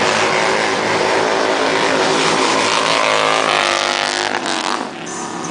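Loud motorcycle engine running hard on the drag strip, its note sliding down as the bike goes past about four seconds in, then fading a little.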